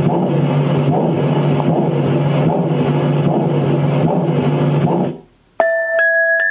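A white noise machine playing one of its built-in presets through its speaker: a steady, loud low noise with a hum. It cuts off about five seconds in, and moments later the machine starts a chiming music-box lullaby melody.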